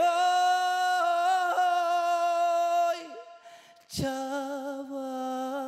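A man singing unaccompanied in Romani: one long held note, swooping up into it at the start and lasting about three seconds, then after a short break a lower phrase sung with vibrato.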